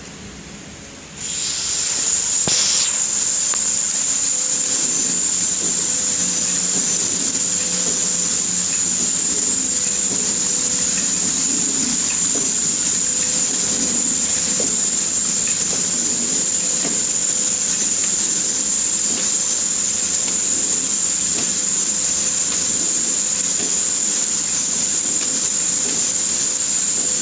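Horizontal flow-pack wrapping machine running, with a steady high-pitched whine over a hiss and a faint low hum, setting in suddenly about a second in and holding steady.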